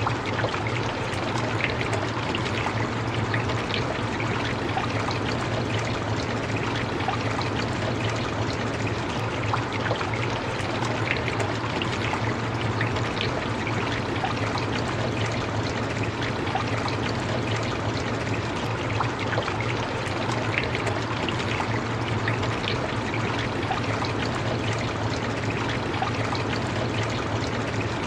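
Steady rain falling: an even, unbroken hiss of many drops, with a steady low rumble underneath.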